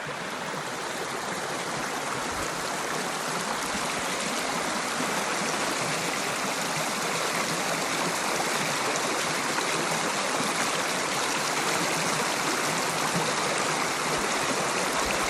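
A woodland stream flowing with a steady rush of water, powerful yet soft.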